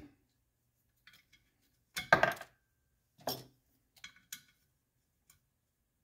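Small metal clinks and knocks of a steel socket being tried on a nut and handled among a socket set: a handful of sharp taps, the loudest cluster about two seconds in.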